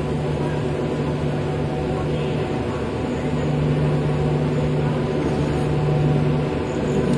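Passenger train coach rolling slowly out along the platform: a steady rumble of wheels on the rails with a constant low hum.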